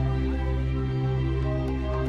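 Background music of held notes over a steady low drone.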